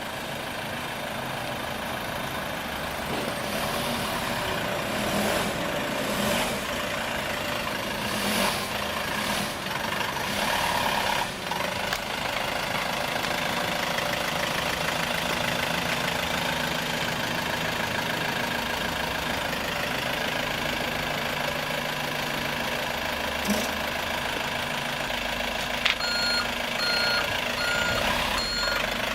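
Small loaded flatbed truck's engine running steadily as it is driven slowly. Near the end its reversing beeper starts, beeping at a regular pace.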